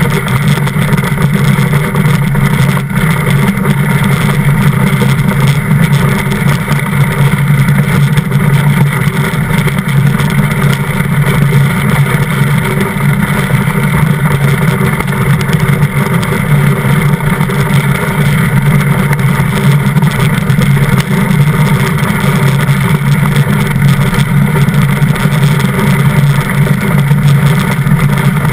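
DN iceboat running fast over the ice: a steady, loud roar of the runners on the ice mixed with rushing wind, picked up by a camera mounted on the hull.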